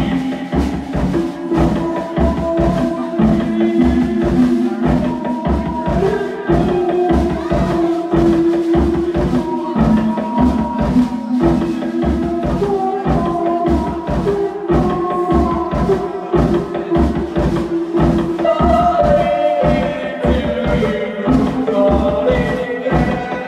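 Live band music: a steady drum beat under held pitched notes that shift every second or two.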